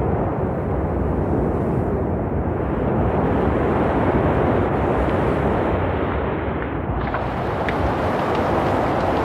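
Wind-driven forest fire: a loud, steady low rushing noise of wind and flames. After a cut about seven seconds in, sharp crackles and pops from burning conifers sound over it.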